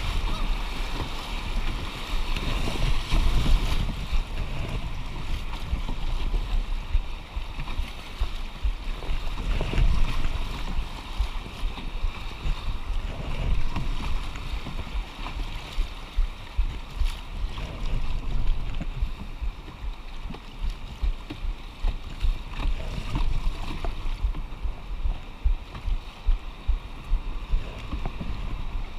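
Whitewater rapids rushing and splashing around an open canoe as it is paddled through, with wind buffeting the microphone.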